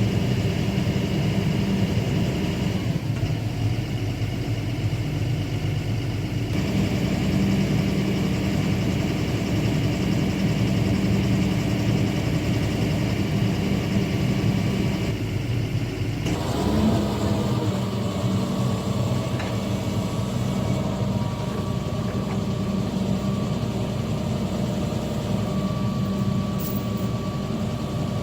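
Excavator's diesel engine running steadily, its tone changing abruptly a few times.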